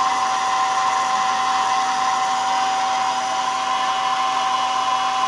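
Steady whine of the blower that draws woodgas from the gasifier up to the flare burner, two even tones over a constant hiss.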